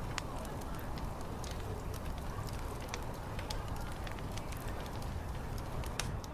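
Wood fire crackling, with scattered sharp snaps and pops, the loudest near the end, over a steady low rumble.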